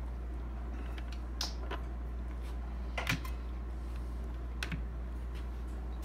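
Scattered light plastic clicks and taps as shredded vegetable is picked off a KitchenAid food processor's slicing disc and bowl rim, the sharpest about three seconds in, over a steady low hum.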